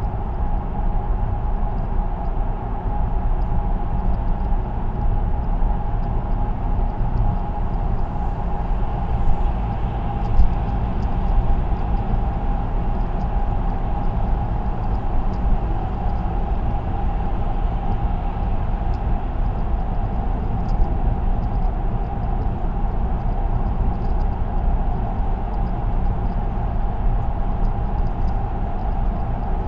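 Car cruising on an expressway, heard from inside the cabin: steady tyre and road noise with a low rumble and a constant hum.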